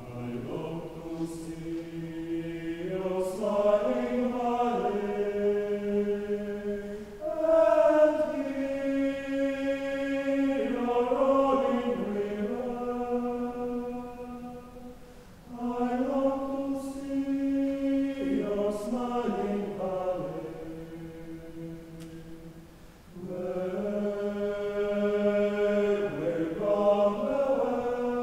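Mixed choir of men's and women's voices singing slow, sustained chords in long phrases, each swelling and then fading with a short breath before the next.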